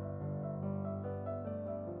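Background piano music: single notes moving over held low chords.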